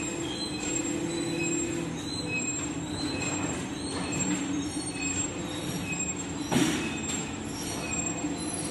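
Machinery of a balsa wood press line running with a steady hum, dotted with short high-pitched squeaks. A single loud clunk comes about six and a half seconds in.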